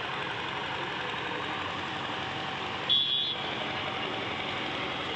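Steady engine noise at a railway track repair site, with faint voices. About three seconds in there is a brief, loud, high-pitched ring.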